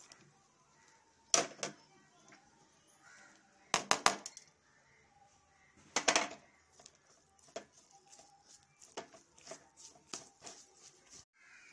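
A metal fork clinking and scraping against a ceramic bowl while chopped onion, cabbage and grated potato are mixed. Sharp clinks come every couple of seconds, then a run of lighter ticks near the end.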